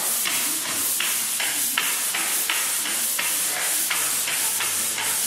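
Drywall pole sander with fine 120-grit sandpaper scraping back and forth over a finished drywall flat seam in quick even strokes, about three a second.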